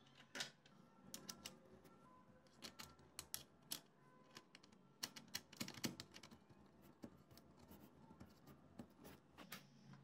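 Light metallic clicks and taps of the painted metal exhaust-fan support arms being fitted into the frame ring by hand, in irregular short clusters, the sharpest clicks coming about five to six seconds in.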